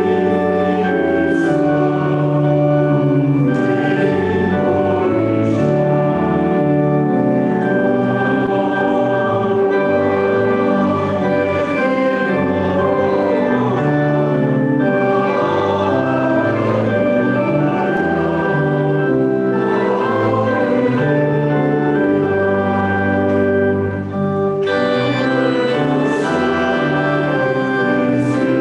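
Church organ playing sustained chords while a choir sings with it. Near the end the music pauses briefly, then comes back brighter.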